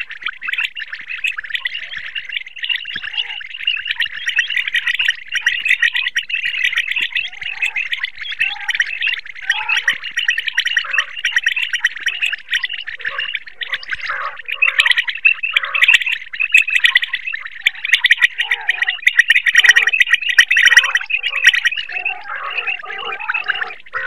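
Common quail calling: rapid, overlapping calls run together in a continuous chattering, growing louder about halfway through.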